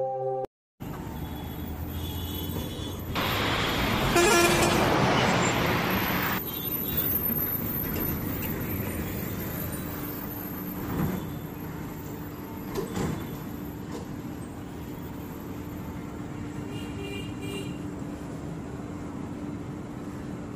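Bus stand ambience: buses' diesel engines running with a steady low rumble and hum. About three seconds in, a loud rush of noise lasts about three seconds, then the engine rumble goes on.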